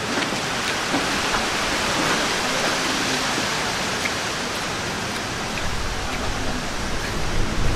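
Steady hiss of heavy rain, with a low rumble building near the end.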